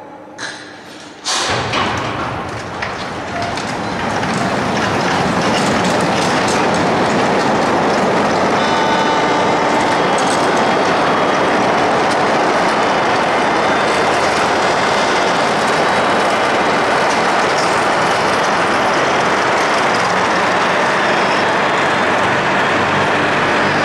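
A bulk carrier's hull sliding down the launching ways: a loud, steady rattling noise that starts suddenly about a second in and builds over the next few seconds.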